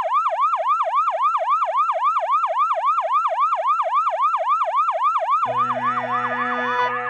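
Emergency-vehicle siren in a fast yelp, its pitch sweeping up and down about four times a second. About five and a half seconds in, music comes in and the siren fades away.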